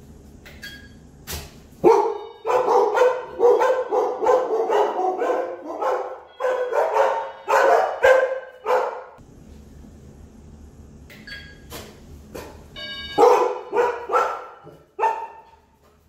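An electronic doorbell chime about half a second in, then dogs, Belgian Malinois among them, barking in a frenzy, a dense run of loud barks lasting about seven seconds: barking set off by the doorbell. After a lull the chime sounds again and sets off a shorter burst of barking.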